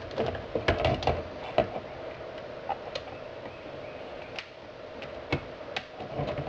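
Scattered light clicks and rattles of hands handling a loose plastic console tray and its wiring connectors, over a steady faint hum.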